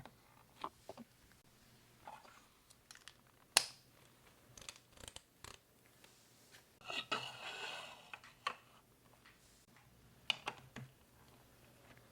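Hands handling LEGO Duplo plastic pieces and their packaging: scattered light clicks and taps, with one sharper click a few seconds in and a brief rustle about seven seconds in.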